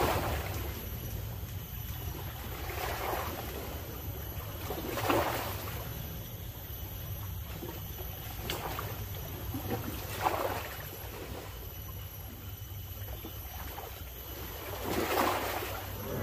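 Small waves lapping and splashing against the shore every few seconds over a steady low rumble of wind.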